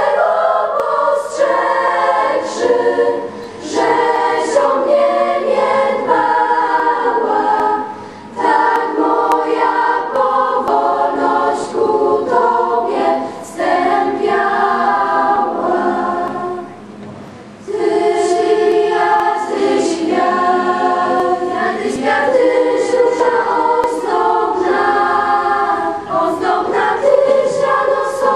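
A school choir singing a song in several voice parts, in long phrases with short breaks between them.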